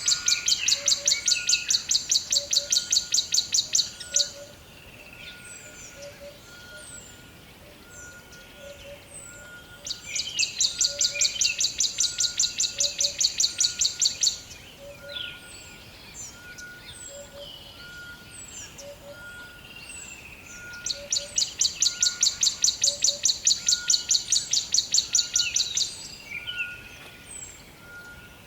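Rainforest ambience: a loud, rapid, high pulsing trill of about ten pulses a second comes in three bouts of around four seconds, one ending about four seconds in and the others starting about ten and twenty-one seconds in. Between and under the bouts come many short chirping bird calls and a soft note repeating about once a second.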